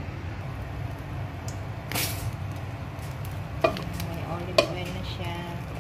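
A few knocks and clinks of a wok and utensils on a gas stove, with short ringing after the knocks, over a steady low hum. A sharp, loud click comes at the very end.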